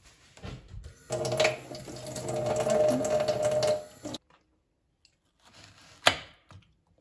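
Kitchen tap running into a stainless-steel sink as a strawberry is rinsed under the stream. The water runs for about three seconds, with a steady tone in it, then cuts off suddenly. Near the end comes a single sharp knock of a knife cutting through a strawberry onto a bamboo cutting board.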